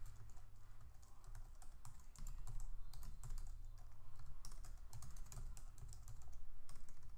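Typing on a computer keyboard: a run of quick, irregular key clicks as a line of text is entered.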